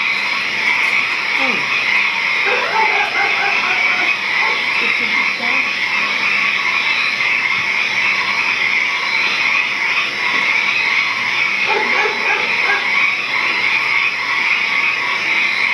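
Dense, steady night chorus of croaking frogs and chirping insects: the night-time soundscape that opens a Vietnamese water puppet show.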